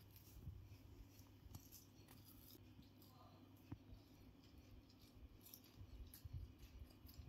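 Near silence: room tone with a few faint, scattered clicks and taps.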